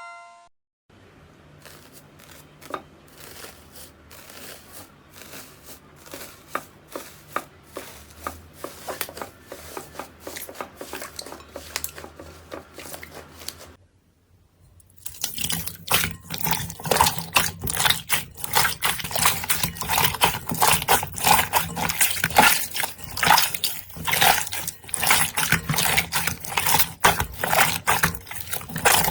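Slime being squished, poked and stretched by hands, giving soft wet clicks and squelches. After a short gap about halfway through, a louder stretch of dense, rapid crackling and squishing follows.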